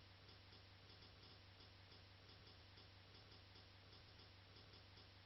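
Near silence: faint room tone with small, regular ticks.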